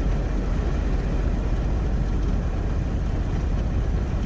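Steady summer rain falling, an even hiss over a constant deep rumble.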